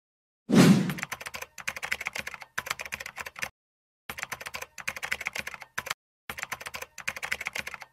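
Computer keyboard typing sound effect: runs of rapid key clicks in several bursts with short pauses between them. A short thump comes just before the first run, about half a second in.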